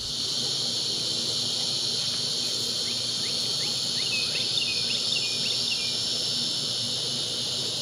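Steady, high-pitched insect chorus, with a run of short, quick chirps from about three to six seconds in.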